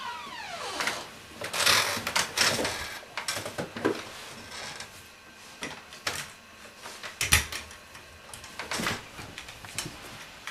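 Metal forearm crutches handled as a person gets up from bed: irregular clicks and knocks with rustling of bedding, the sharpest click about seven seconds in. A falling creak trails off at the start.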